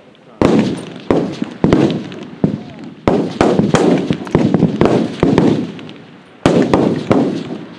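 F-Class match rifles firing along the firing line: a dozen or more shots at irregular intervals, some close together, each followed by a rolling echo that dies away over about half a second.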